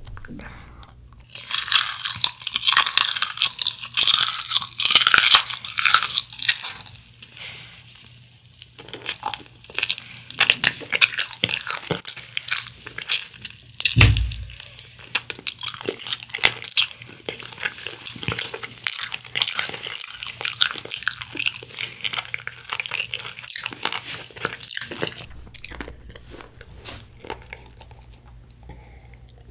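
Close-up crunching and chewing of crispy honey-glazed fried chicken (Kyochon Honey Combo), thick crackly bites in the first several seconds, then steadier chewing. A single dull thump about halfway through, and the crunching thins out near the end.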